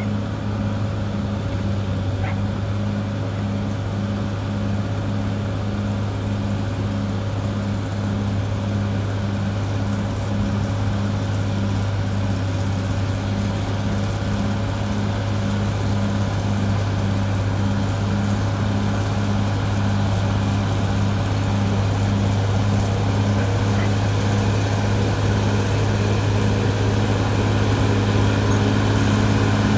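Caterpillar D6R XL bulldozer's diesel engine running steadily, a low hum with an even pulsing beat, growing slowly louder.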